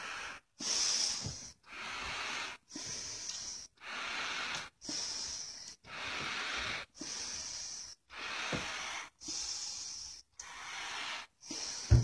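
A person breathing hard close to the microphone, long noisy breaths in and out at a steady pace of about one a second. A single dull thump near the end.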